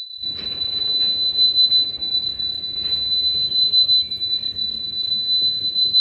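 A steady 4000 Hz sine tone from a Bluetooth speaker riding on a turning merry-go-round. Its pitch wavers slightly up and down with the Doppler shift as the speaker circles past the recording phone. Faint background noise lies under it.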